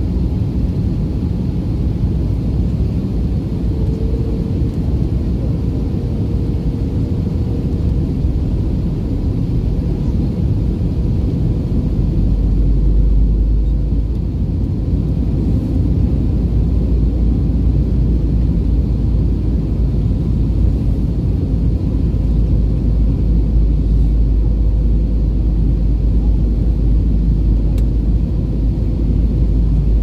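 Airliner cabin noise in flight: a steady low rumble of the jet engines and rushing air, which grows deeper and a little louder about twelve seconds in.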